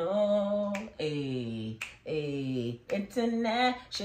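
A woman's voice half-singing the word "international" in long, drawn-out notes, twice dropping to a low note that slides downward.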